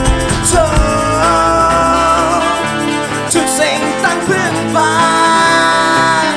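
Small band playing live: strummed acoustic guitars, an electric guitar and a tambourine, with a voice holding two long notes, the second starting about five seconds in.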